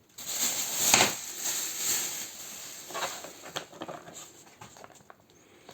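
Packaging rustling and scraping as a car cooler is pulled out of its box: a loud rush of rustling for the first couple of seconds, then scattered softer rustles and small knocks.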